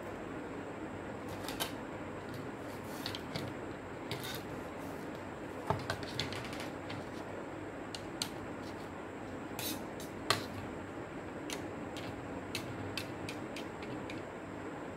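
Irregular small clicks and taps of plastic and metal parts being handled and worked with a small screwdriver while a portable CD player is taken apart, over a steady background hiss. The clicks come unevenly, a few louder ones about six and ten seconds in.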